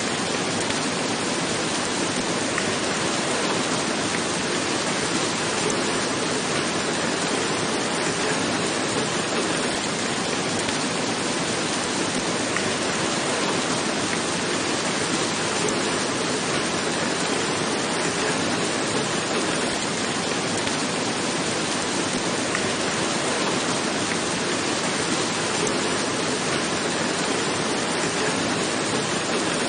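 Steady rain falling on a roof, an even unbroken hiss of drops with no let-up.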